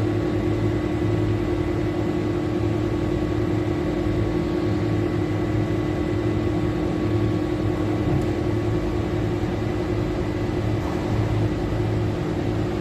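Low-temperature, high-humidity cold-storage refrigerator running with a steady machine hum: one strong steady tone over a lower hum that swells and fades, under an even rush of fan-like noise.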